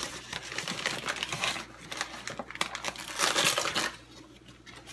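Crinkling and rustling of a sugar bag being handled as white sugar is scooped out, with many small clicks, loudest a little past halfway.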